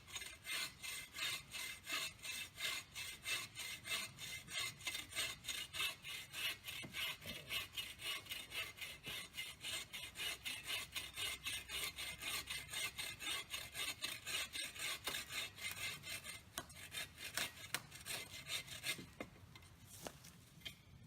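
Hand saw cutting through a tree trunk in quick, even back-and-forth strokes, about three a second. About three-quarters of the way through the strokes stop, and a few scattered scrapes and knocks follow.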